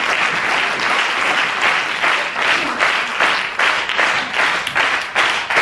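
Audience applause, a dense crackle of many hands clapping that, about halfway through, settles into rhythmic clapping in unison at about two to three claps a second.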